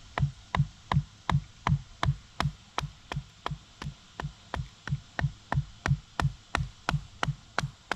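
Batoning: a knife blade driven into a dead maple branch by repeated blows from a wooden baton, splitting the wood. The knocks come at a steady rhythm of about three a second, each a sharp crack with a dull thud under it.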